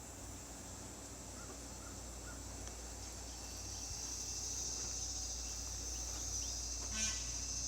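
Steady high-pitched insect chorus that swells in loudness partway through, with one brief harsh animal call near the end.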